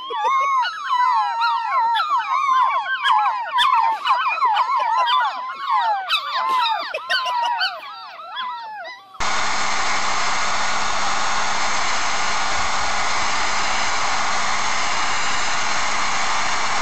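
A litter of puppies howling and yipping together, many wavering cries overlapping. About nine seconds in, this cuts off abruptly to a steady rushing noise with a faint constant tone.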